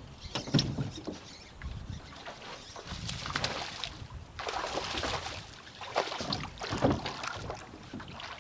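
Irregular knocks and thumps with rustling, splashy noise from a small aluminum fishing boat on the water. The knocks come a little after the start and twice near the end.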